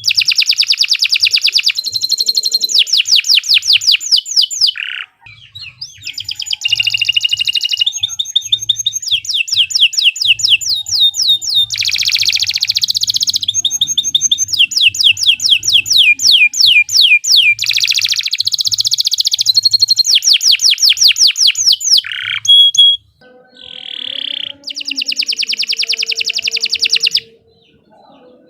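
Domestic canary singing a long, loud song of rapid trills, fast runs of repeated sweeping notes. It breaks off briefly about five seconds in and again near the end.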